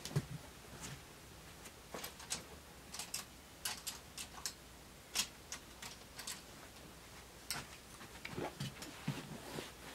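Faint, irregularly spaced clicks and taps of a person moving about a quiet room and handling small objects.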